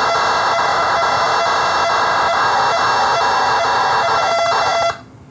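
Old home-computer data recording played back from cassette tape through a NAD 6155 cassette deck: a loud, dense, raspy data signal over a steady buzzy tone. It briefly settles back to the plain tone, then cuts off about five seconds in as playback is stopped.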